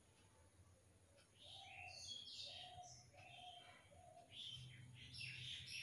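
Faint bird chirps over near silence, short scattered calls starting about a second and a half in.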